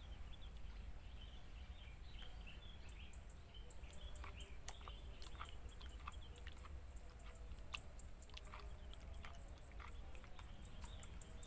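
Quiet outdoor background: a steady low rumble with scattered light clicks and faint high chirping.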